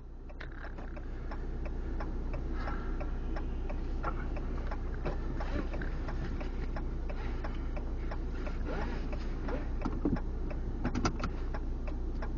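Car running, heard from inside: a steady low engine and road hum with many scattered light clicks and ticks over it.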